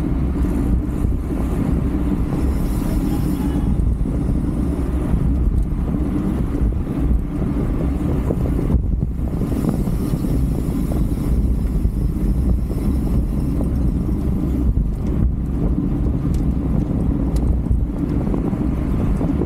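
Wind rushing over the microphone of a 360 camera carried on a racing bicycle at race speed: a steady low rumble of air that dips briefly about nine seconds in.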